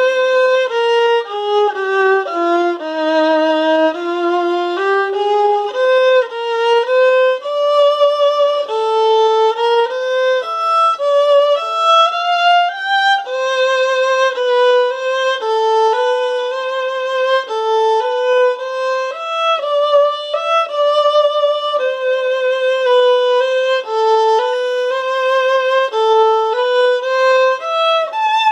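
Solo German violin played with the bow, a melody of held notes with vibrato moving mostly by step through the middle register, played as a technique exercise.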